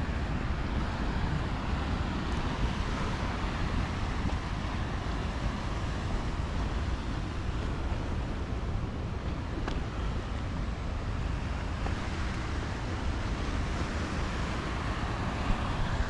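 Steady wind buffeting the microphone over surf washing against a rocky sea shore.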